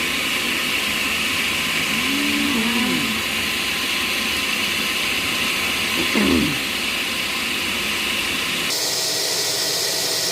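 Electric kitchen blender running steadily, blending pumpkin, eggs and milk into a smooth batter. About nine seconds in the sound shifts, its deep part dropping away and leaving a thinner, higher whir.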